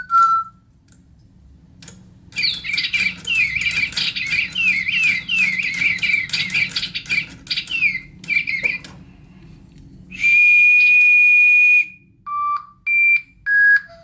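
DigiBirds electronic toy birds tweeting through their built-in speakers: a run of rapid, falling chirps lasting about seven seconds, then a loud held whistle for nearly two seconds, then a few short whistled notes that begin a tune.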